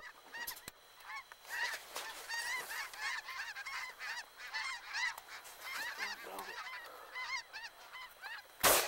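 A large flock of geese flying overhead, many birds honking at once in short, overlapping calls. A sudden loud burst of noise cuts in near the end.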